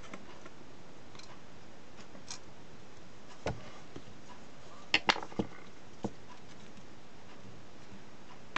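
Scattered sharp clicks and light knocks of the Panasonic ES6003 shaver's plastic housing and head parts being handled and pulled apart by hand, a few at a time. The loudest is a quick cluster of clicks about five seconds in.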